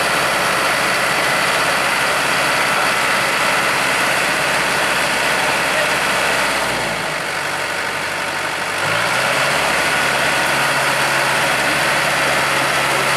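Diesel engine of a Kubota DCX 100 rice combine harvester running steadily; its engine note drops about seven seconds in and rises back about two seconds later.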